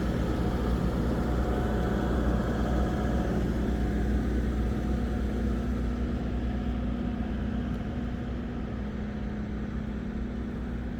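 Steady low mechanical hum with a constant low tone, easing off slightly in the second half.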